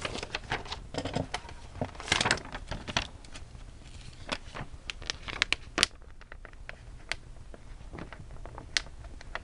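Paper and sticker sheets handled close by while stickers are peeled and pressed onto a scrapbook page: crinkling and light rustling, a short dense rustle about two seconds in, and scattered small taps and clicks.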